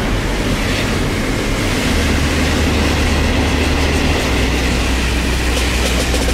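A car driving on the road, with a steady low engine and road rumble that shifts slightly in level a couple of times.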